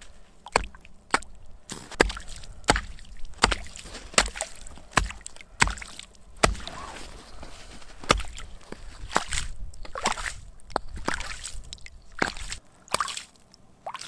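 Small axe chopping a fishing hole through ice, each blow landing in slush and water with a wet, splashing chop. About a dozen blows: steady, roughly one every two-thirds of a second at first, then lighter and less regular from about eight seconds in.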